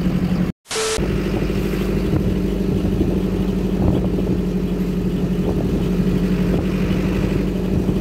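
Vehicle engine running steadily while under way, with wind rumbling on the microphone. A split-second dropout comes about half a second in.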